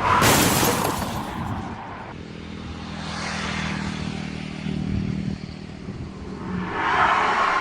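Car-crash sound effect: a loud sudden crash right at the start that dies away over about a second and a half, then a steady engine hum, and another crash noise building near the end.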